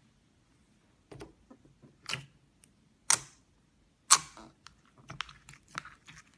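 Slime being squeezed and poked, giving sharp sticky pops and clicks about once a second. The loudest pop comes about four seconds in, followed by a quick run of small crackles.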